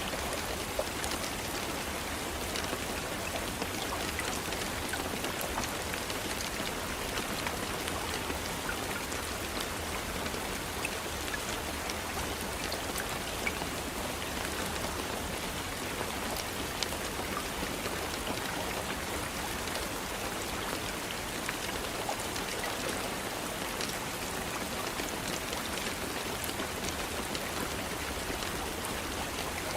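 Steady rain falling on a surface, an even hiss with individual drops ticking through it.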